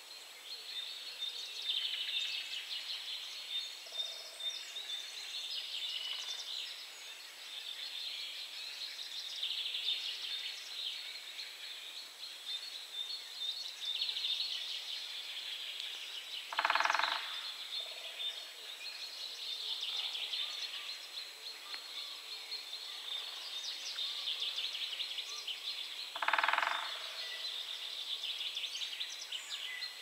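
Great spotted woodpecker drumming on a dead tree: two short, rapid rolls of bill strikes, each under a second, the first just past the middle and the second about ten seconds later. Other birds keep up a steady high chirping throughout. Drumming is this woodpecker's territorial and courtship signal.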